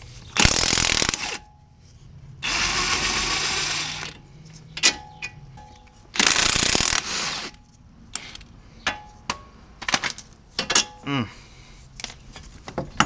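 Cordless DeWalt impact wrench hammering in three bursts of about a second each as bolts are run out of a front steering knuckle, followed by sharp metallic clicks and clanks of bolts and parts being handled.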